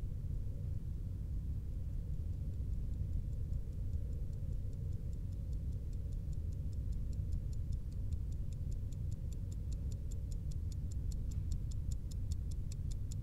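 Steady low rumble. About two seconds in, the ticking of an analog alarm clock fades in over it and grows louder, several even ticks a second.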